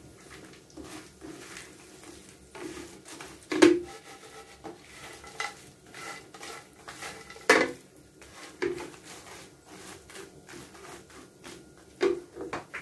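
A spatula stirs and scrapes a panful of dried anchovies (dilis) in a frying pan, with a rustling shuffle of the dry fish. Several sharp knocks of the spatula against the pan stand out, loudest about three and a half seconds in, again at seven and a half seconds and near the end.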